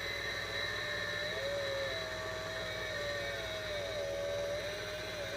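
Small chainsaw motor whirring steadily, its pitch wavering slightly up and down.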